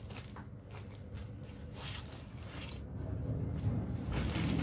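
Rustling of cloth garments being folded, handled and set down, in a series of short swishes that grow denser and louder near the end, over a steady low hum.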